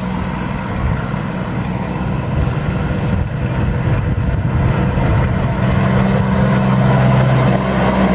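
Heavy diesel truck engine pulling under load, a steady low engine note with road noise that grows gradually louder as the truck approaches.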